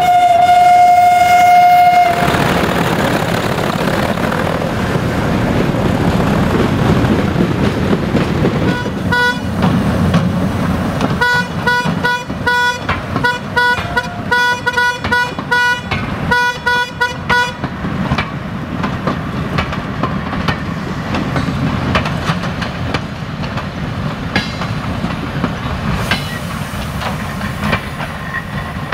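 A diesel locomotive sounds its horn in one steady blast of about two seconds, then its engine rumbles on as it hauls passenger coaches past. From about nine seconds in, a level-crossing bell rings in rapid repeated strokes for around eight seconds.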